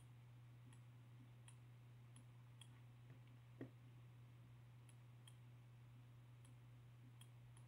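Near silence: faint computer mouse clicks, scattered about once a second with one a little louder about three and a half seconds in, over a steady low hum.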